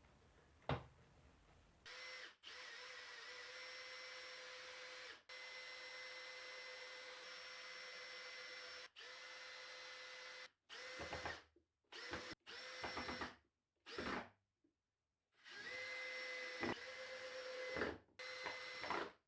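Power drill driving screws into wood. The motor whines steadily in several runs with brief stops between, some long and some short bursts, as each screw is driven home.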